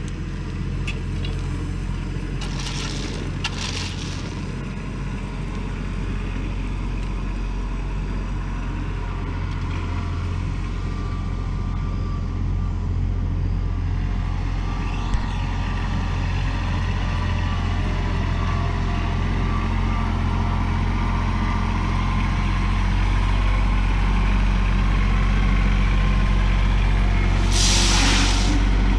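Tractor engine running steadily and slowly getting louder, with a few brief hisses: one pair a few seconds in and one near the end.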